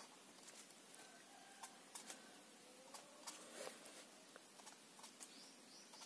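Faint marker pen on paper: brief taps and short scratchy strokes as small lines are drawn.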